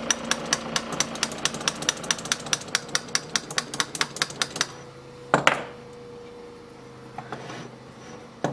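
Small hammer tapping a steel drill-rod spoke into a model steam engine flywheel: quick light taps, about five a second, that stop about four and a half seconds in. One harder blow comes about a second later, followed by a faint ringing tone.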